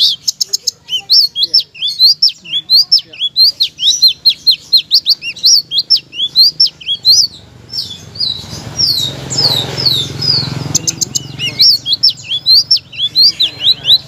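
Caged selendang biru songbird singing loudly: a fast run of short chirps that sweep down in pitch, about three or four a second, broken by brief pauses. A low rumble swells and fades about two thirds of the way through.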